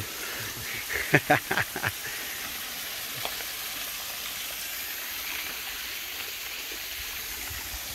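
Small waterfall running down a rock face into a pool, a steady, even hiss of falling water. A voice speaks briefly about a second in.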